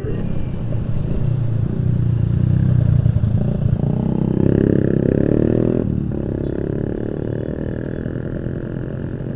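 Yamaha RX-King 135cc two-stroke single-cylinder motorcycle engine under way, its pitch rising as it accelerates. It dips sharply at about six seconds in, as at a gear change, then runs on steadily.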